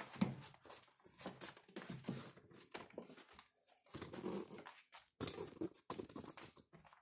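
Heavy metal wood stove being shifted across a floor: scattered knocks, clunks and scrapes with short pauses between them.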